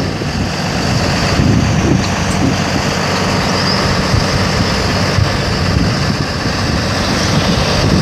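Box truck's engine idling steadily, mixed with a rough wind rumble on the microphone.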